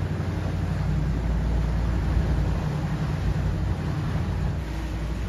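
Engines of a 2006 Meridian 341 Sedan Bridge motor yacht running steadily while cruising slowly, a low drone under a constant rushing noise.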